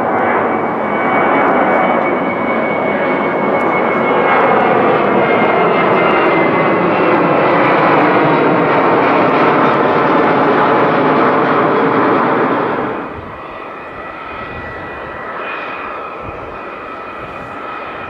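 Boeing 747-400's four General Electric CF6 turbofans at takeoff thrust: a loud jet roar with a steady high whine above it, dropping sharply in level about two-thirds of the way through to a quieter rumble that carries on with the whine.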